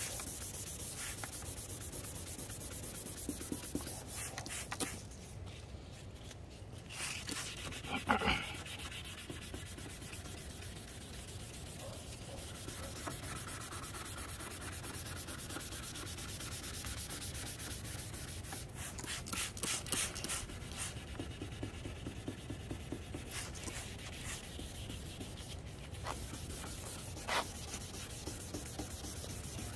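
Sandpaper rubbed back and forth by hand over a plastic headlight lens, sanding off old clear coat and oxidation, with a short pause about five seconds in.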